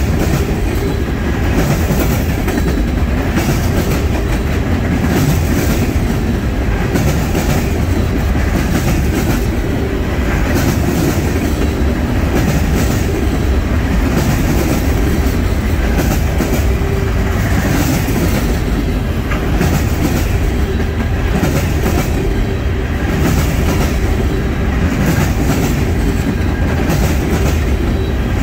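Freight train of garbage container cars passing on the near track: a steady loud rumble of steel wheels on rail with a repeated clickety-clack of the wheels clicking over the rails.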